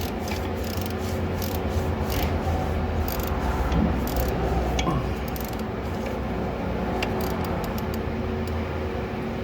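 Wrench working on a tight alternator mounting bolt under the hood: scattered short metallic clicks and rubbing over a steady low hum.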